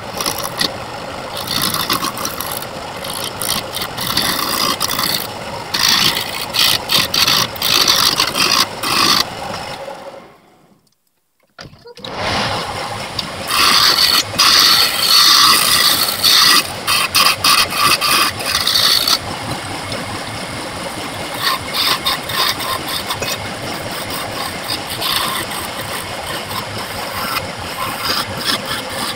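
Wood lathe running with a cutting tool scraping the spinning wood in repeated bursts. The sound fades out about ten seconds in and comes back sharply about a second and a half later.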